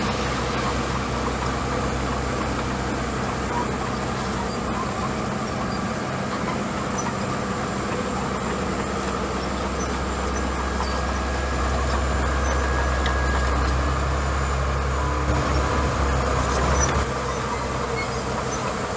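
Small crawler bulldozer's diesel engine running steadily as it pushes a load of gravel with its blade. The engine grows louder and deeper for a few seconds past the middle, then eases back near the end.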